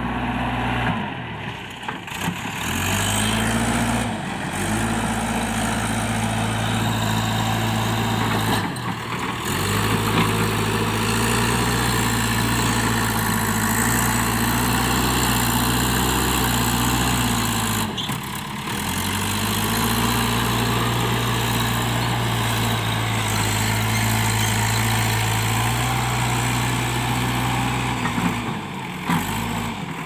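JCB backhoe loader's diesel engine running at steady revs while the front bucket works soil, with a few brief dips in the engine note.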